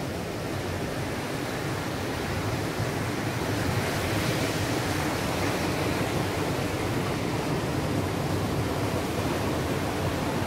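Ocean surf breaking on a sandy beach: a steady wash of noise with no separate events.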